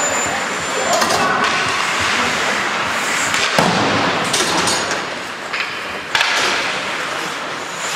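Ice hockey play on the rink: skates scraping the ice and sticks and puck clacking, with several sharp knocks of puck or players against the boards, the strongest about three and a half seconds in and again near six seconds.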